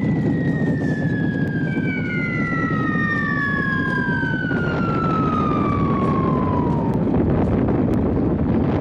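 Steady low rumbling with two long whistling tones over it, the second starting while the first is still sounding; each falls slowly in pitch over about five seconds.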